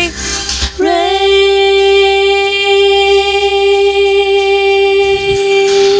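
A single long wordless sung note on the isolated vocal track, entering about a second in with a slight upward slide, then held at one steady pitch. A faint low hum sits beneath it.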